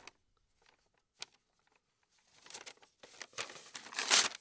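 Paper rustling and crinkling in scattered bursts, loudest just before the end, with a single click about a second in.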